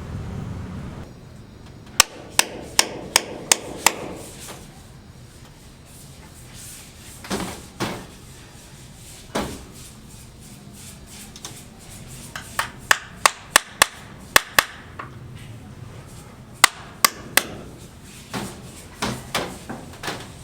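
Hand hammering in quick runs of sharp strikes, about three a second, with a few duller knocks between the runs.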